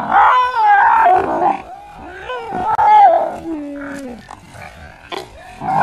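A dog barking and snarling in loud calls that bend up and down in pitch, ending in a lower, falling whine about four seconds in.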